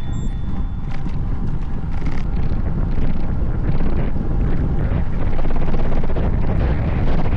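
Wind buffeting the microphone of a camera riding along on a moving road bike: a loud, steady rumbling rush with no voices.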